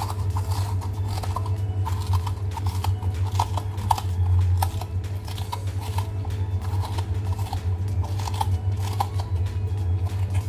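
A small kitchen knife paring the skin off a potato by hand, giving short, irregular scraping cuts over a steady low hum.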